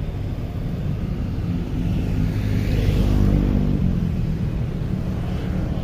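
Street traffic rumbling steadily, with a motor vehicle's engine passing close by and loudest about three seconds in.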